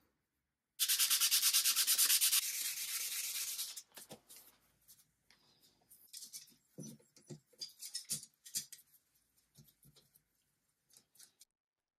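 Steel wool scrubbed fast against solid brass hinge hardware to polish it, about seven strokes a second for some three seconds, then stopping; scattered light clicks and rustles of the hardware and steel wool being handled follow.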